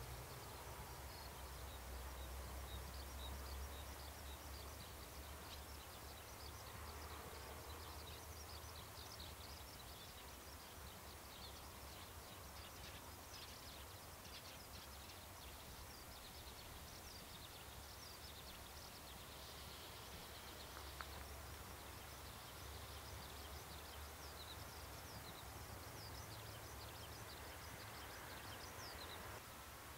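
Faint outdoor ambience: small birds chirping over a low steady rumble.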